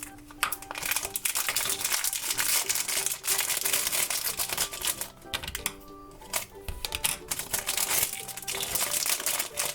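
Crinkling of a toy blind bag being handled and opened, in two long stretches with a short break just after halfway, over light background music.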